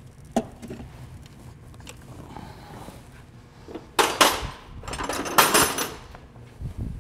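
Hand tools and metal fittings being handled while a car's fuel line is disconnected from the fuel filter: a sharp click, then, about four seconds in, two seconds of loud scraping and clattering.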